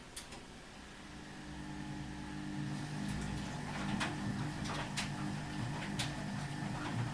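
Ardo washing machine running: a steady motor hum comes in about three seconds in and grows louder, with sharp clicks or knocks about once a second.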